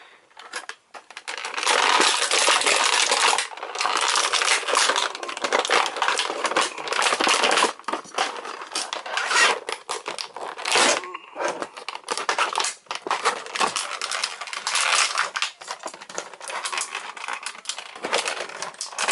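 Clear plastic toy packaging crinkling and crackling as hands handle and squeeze it, with a short pause about eleven seconds in.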